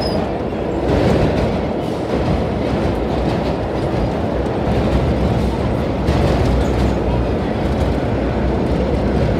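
Vintage R1-9 subway car running at speed through a tunnel, heard from inside the car: a steady, loud rumble of wheels on rail with a few clacks over rail joints.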